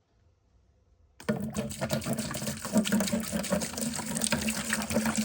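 White vinegar being poured into a bucket, starting about a second in and running steadily.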